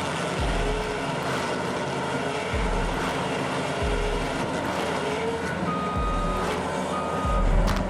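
Heavy machinery running steadily with a rumbling engine. Near the end come two long, high beeps from a warning alarm.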